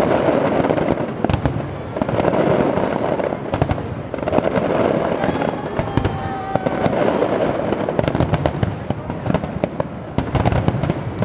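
Big fireworks display: many aerial shells bursting at once, a dense continuous crackle that swells and ebbs every couple of seconds, with many sharp single bangs throughout.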